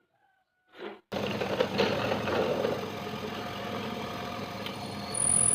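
A motor-driven machine running steadily, cutting in abruptly about a second in.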